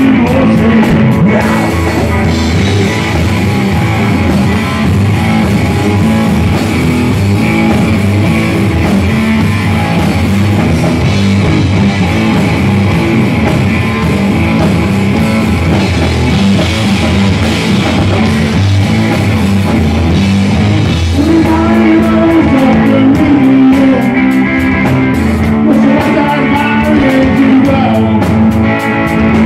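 Hard rock band playing live at full volume: distorted electric guitar, bass and a drum kit, with lead vocals at times.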